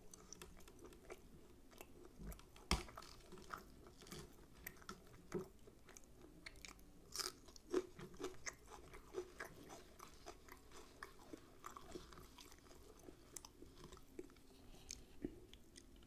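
A person chewing close to the microphone, with crisp crunches of raw red onion alongside soft food. The crunches come at uneven moments; the sharpest is about three seconds in and a quick cluster follows around seven to eight seconds.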